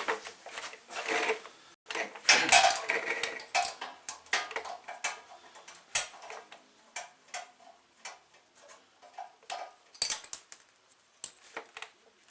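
Hand tools and small metal parts clicking and clinking on the small generator engine as its valve cover is unbolted and lifted off: irregular light clicks and knocks, with a louder cluster about two seconds in and again near ten seconds.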